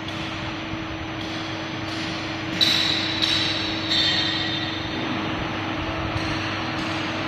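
CNC aluminium profile bending machine running with a steady hum, with three sharp metallic clanks that ring briefly about two and a half, three and four seconds in.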